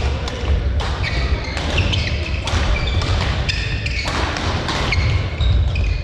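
Badminton doubles rally: rackets hitting the shuttlecock in quick succession, roughly one crisp hit a second, with brief shoe squeaks on the court floor between hits over a steady low rumble.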